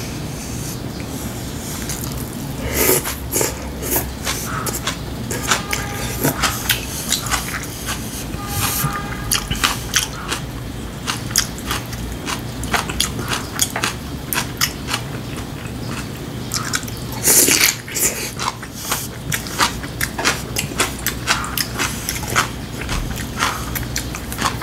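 A man chewing and crunching mouthfuls of food, including crunchy stuffed cucumber kimchi, with short clicks of wooden chopsticks against bowls and one louder clatter about two-thirds of the way through.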